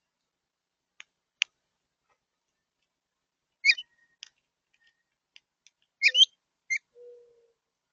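Bird calls: two sharp, very short high chip notes about a second in, then two brief bursts of quick, sliding high calls, followed near the end by a short, low, steady hooting note.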